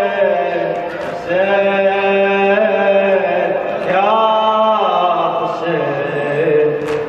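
A male Shia reciter (radood) chanting a Muharram latmiya lament solo into a microphone, with no instruments. He holds long, drawn-out notes that bend slowly in pitch, with short breaths between them.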